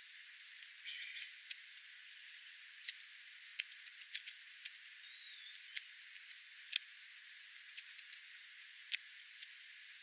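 Scattered sharp clicks and taps of a Steller's jay and a scrub-jay pecking and picking up seed from gravel, with a couple of faint, short high chirps about four and five seconds in.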